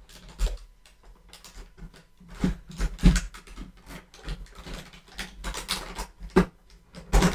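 Hands opening an advent-calendar compartment and handling a small mineral specimen: rustling with an irregular series of sharp taps and clicks, the loudest about three seconds in and again near the end.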